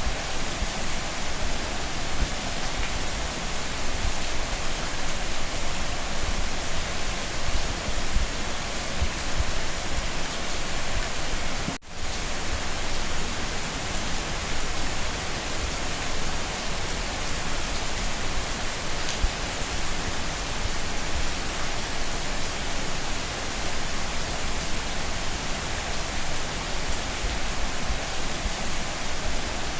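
Steady heavy rain falling, a dense even hiss with no separate drops standing out, broken by a momentary dropout partway through.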